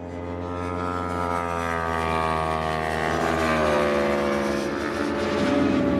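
Sport motorcycle engines running hard on a racetrack as two bikes pass, a steady high-revving drone whose pitch slowly falls. The sound fades up over the first second.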